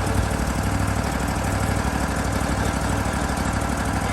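Wood-Mizer LT40 sawmill's Kohler engine idling steadily.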